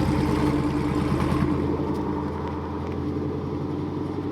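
Pickup truck engine running steadily, its exhaust note slowly easing in loudness.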